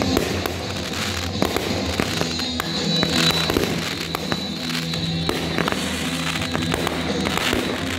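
Fireworks launching and bursting in quick succession, with many sharp pops and crackle, over music playing for the pyromusical show.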